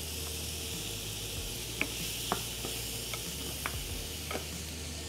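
Onion, leek, garlic and green pepper sizzling in a frying pan with a steady hiss. Parboiled potato cubes are spooned in from a bowl, with a few light taps of the wooden spoon against the bowl and pan.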